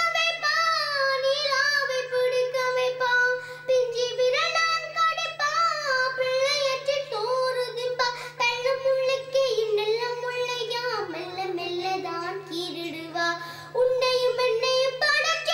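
A young girl singing a Tamil song into a handheld microphone, holding long notes that waver and slide between pitches.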